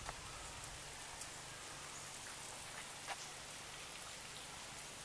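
Faint, steady outdoor background hiss with a few faint ticks.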